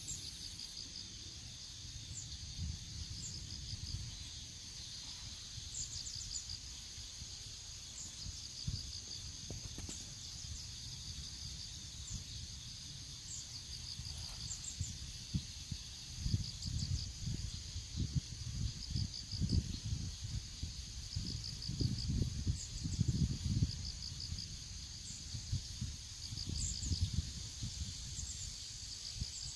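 Autumn field insects chirping steadily in a high continuous trill, with repeated short pulsed chirps over it. Wind rumbles on the microphone underneath and gets gustier about halfway through.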